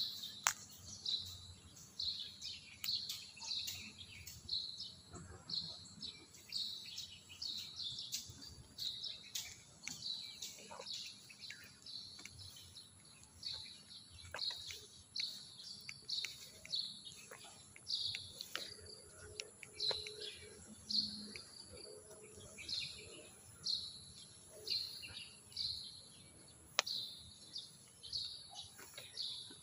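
Birds chirping: a short high chirp repeated steadily, about twice a second.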